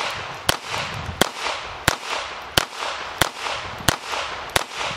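Volquartsen ENV-9 .22 LR semi-automatic pistol with a 9-inch barrel, fired in a steady string of about seven shots, roughly one every two-thirds of a second. Each shot is a sharp crack followed by a short echo.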